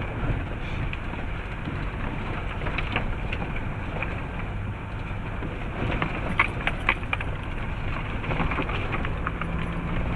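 Land Rover Defender driving slowly on a muddy track, heard from inside the cab: a steady low engine and drivetrain rumble under a hiss like rain. A few sharp ticks come about three seconds in, and a cluster more comes past the middle.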